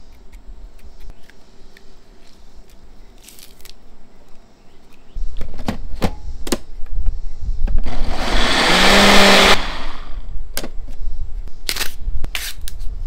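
Personal countertop blender: the cup clicks into place on the base, then the motor runs a short burst of about a second and a half, its pitch rising as it purées a liquid sauce with peppers, before cutting off. A few sharp taps follow near the end.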